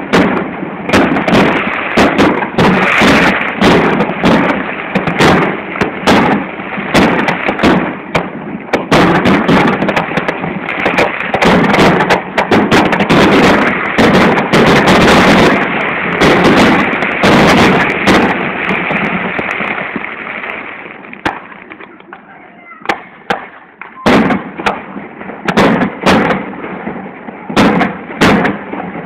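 Fireworks display: a dense, rapid run of aerial shell bursts over steady crackling for about twenty seconds, then thinning to scattered separate bangs near the end.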